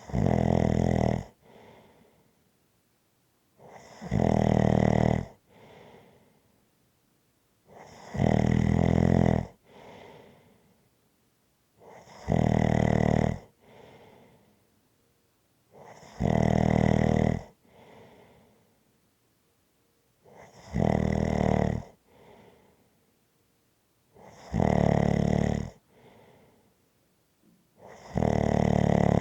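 Snoring: a loud snore about every four seconds, eight in all, each lasting a little over a second and followed by a softer breath.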